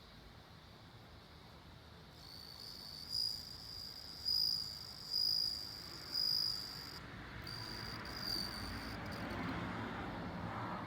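Japanese bell cricket (suzumushi) singing: a high, ringing trill that starts about two seconds in and swells into about five louder pulses roughly a second apart, stopping about two seconds before the end. A rushing background noise grows louder in the last few seconds.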